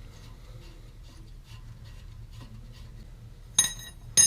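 Small steel bolts, the brake caliper's guide-pin bolts, being handled: faint light ticks, then two sharp ringing metal clinks about half a second apart near the end.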